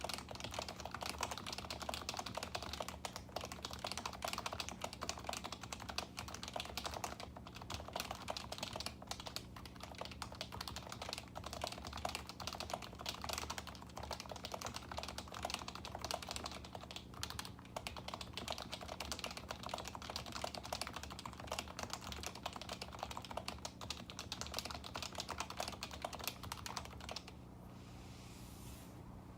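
Continuous fast typing on an HHKB Professional 2 Topre keyboard with its switches lubed with Tribosys 3204, stock 45 g springs and Hi-Pro keycaps, a dense stream of keystrokes. The typing stops about 27 seconds in.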